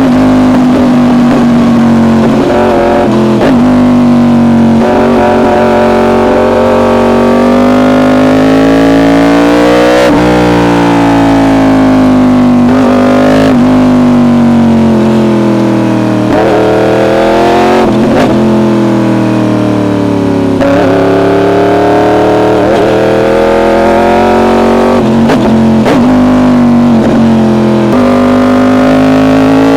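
Yamaha R1 inline-four sportbike engine through an SC Project exhaust, revving up and down through the gears: the engine note climbs and falls again and again, with several abrupt breaks at the gear changes.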